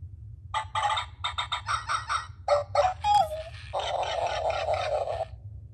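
Hasbro 2005 I-Dog robotic toy dog playing electronic sound effects through its small speaker: a quick run of short sounds, a short falling tone about three seconds in, then a steady buzzy sound that stops about five seconds in.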